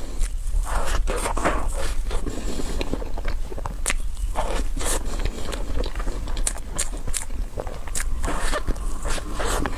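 Close-miked eating sounds: biting and chewing a dessert, with many short crisp clicks scattered throughout.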